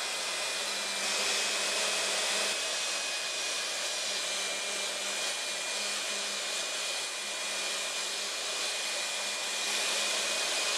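Techno CNC router's spindle running steadily with a high whine as the bit cuts through MDF, a little louder about a second in and again near the end.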